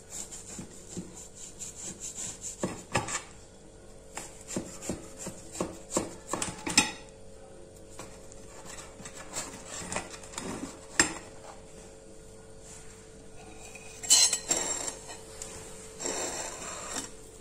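A knife cutting through a baked apple cake, its blade scraping and clicking against the glass dish underneath in a run of short scrapes and taps, busiest in the first seven seconds, with a louder rasping scrape near the end.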